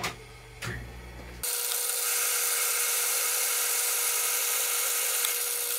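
Atlas 618 metal lathe running, coming on abruptly about a second and a half in as a loud steady hiss with a constant whine, while a threading pass cuts an Acme thread into a steel tap blank.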